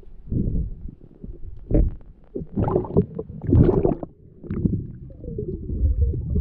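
Muffled underwater noise picked up by a spearfisher's camera: low irregular rumbling of water moving against the camera, with several louder rushes around two, three and three and a half seconds in.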